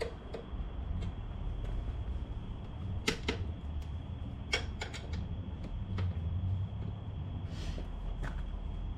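A few sharp metallic clicks and taps from hand tools working the rack's mounting bolts, spaced a second or more apart, over a steady low hum.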